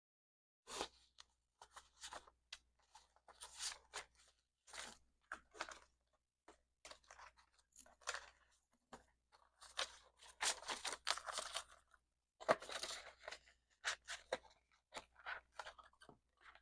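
Paper banknotes and cash envelopes being handled: irregular crisp rustling and crinkling as bills are pulled out, shuffled and counted, busiest about ten seconds in.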